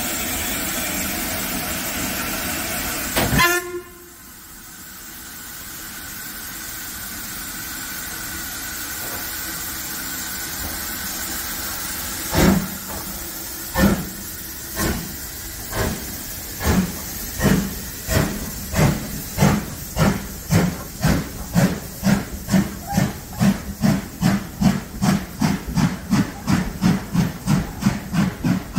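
Ivatt Class 2MT tank engine 41241 with steam hissing steadily; about three seconds in a short whistle toot sounds and the hiss cuts off. The locomotive then starts its train: slow, separate exhaust chuffs from about twelve seconds in, quickening to about three a second as it gathers speed.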